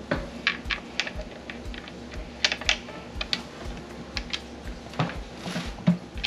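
Irregular light clicks and taps of hard plastic protein-skimmer parts being handled and fitted together by hand.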